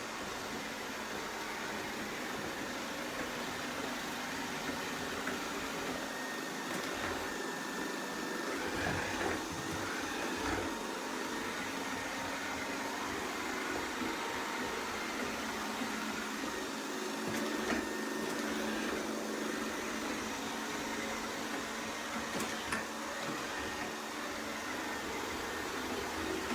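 Robot vacuum cleaner running with a steady whir as it cleans the floor, with a few faint clicks and bumps.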